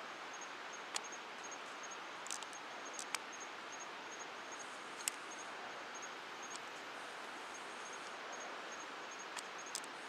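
Bush ambience: a steady hiss with a faint high chirp repeating about three times a second, and a handful of sharp clicks.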